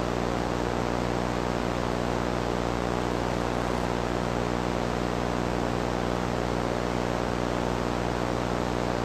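Steady TV-style static: an even hiss with a low electrical buzzing hum under it, unchanging throughout.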